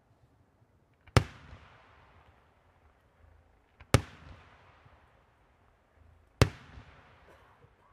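Three aerial firework shells bursting in the sky: sharp bangs about two and a half seconds apart, each followed by a fading echo.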